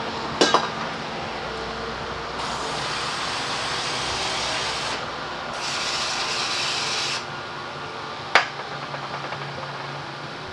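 Aerosol can of brake cleaner spraying in two hissing bursts, the first about two and a half seconds long and the second a little shorter, between two sharp metallic clicks of tools being handled.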